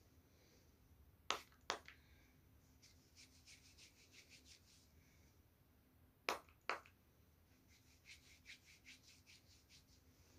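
A pump spray bottle of hair-growth spray giving two quick sprays, then two more about five seconds later. Each pair is followed by fingers rubbing and scratching through the hair at the scalp in quick strokes, about five a second.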